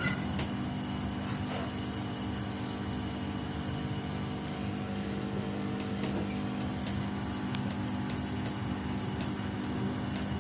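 Samsung WW75TA046TE front-loading washing machine running with a steady hum and a few faint scattered clicks. The owner reports this as an abnormal noise from the machine.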